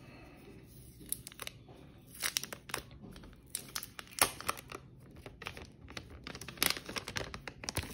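Thin clear plastic protective film being peeled off a new smartphone, crinkling and crackling in sharp, irregular snaps from about a second in. The loudest snaps come about four seconds in and again near seven seconds.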